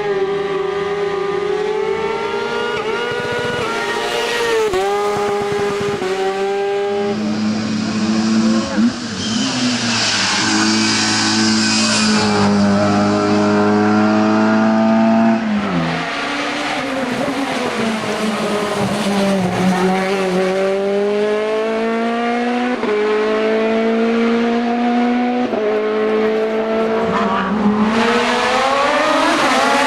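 Racing car engine at high revs under hard acceleration, its pitch climbing and then dropping back at each quick gear change, a dozen or so times.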